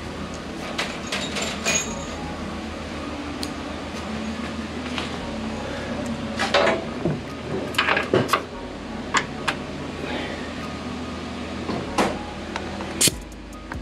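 Air chucks being handled and clipped onto tire valve stems: a scattering of short, sharp metal clicks and knocks over a steady background hum.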